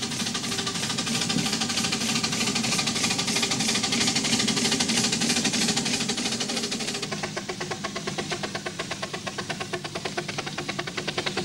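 7¼-inch gauge miniature steam locomotives working past with trains, their exhaust making a rapid, even chuffing. About seven seconds in, a second locomotive takes over with a clearer, more separate beat.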